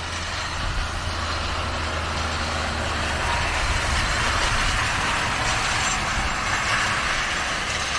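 Tractor engine running steadily while pulling a straw rake through the stubble: a constant low hum under an even rushing noise that swells slightly mid-way.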